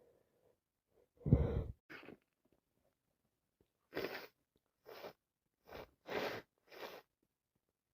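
A woman sneezing: one loud sneeze about a second in, then several shorter bursts in quick succession, from a head cold on top of allergies.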